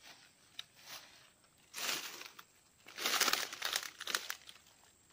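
Rustling and crinkling in two bursts, a short one about two seconds in and a longer one a second later, with a few light clicks between.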